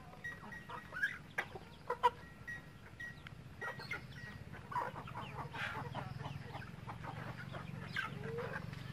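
Domestic chickens clucking, short scattered calls from several birds, with a few sharp clicks and a low steady hum underneath.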